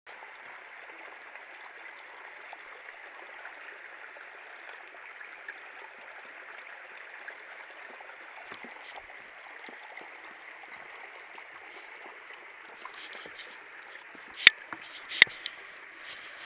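Steady rush of a small stream flowing, with two sharp knocks under a second apart near the end.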